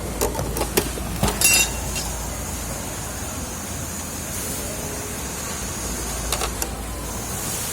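Sharp metallic clicks and knocks from hand work on an industrial two-needle chain-stitch sewing machine: a quick cluster in the first second and a half and a couple more near the end, over a steady hiss.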